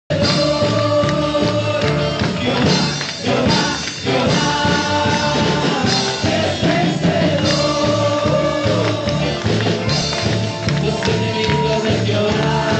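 Live worship band music: a man sings a gospel song into a handheld microphone over electric guitar, keyboard and a steady beat.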